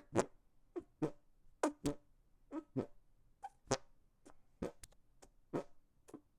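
Fart noises made with the hands: a quick run of about fifteen short squelching blasts of air, some carrying a brief buzzing tone, at irregular intervals of roughly half a second.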